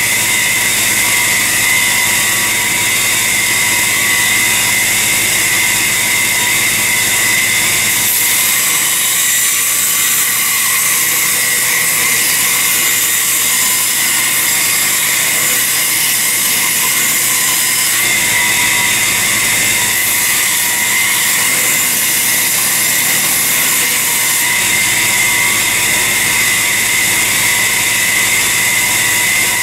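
Electric grinder running steadily with a high whine while a steel knife blade forged from a Heller file is ground against it.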